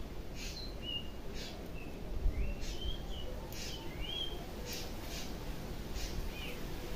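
Small birds chirping: short calls that bend up and down in pitch, scattered among short scratchy rasps that come roughly once a second, over a low background rumble.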